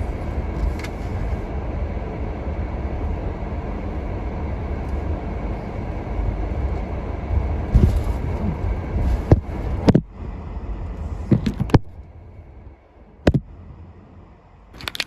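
A car running, with a steady low rumble of engine and road noise heard from inside the cabin. The rumble drops away suddenly about ten seconds in, and a few sharp clicks and knocks follow.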